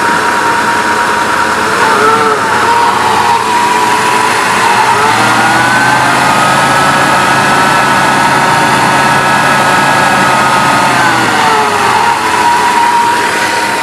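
Jeep WJ's 4.0-litre inline-six being given gas, with a high whine that rises in pitch as the revs climb. The whine holds for about six seconds in the middle, then falls back to a steady lower whine as the throttle is released. The owner says the whine comes when he hits the gas and is louder than the exhaust while driving.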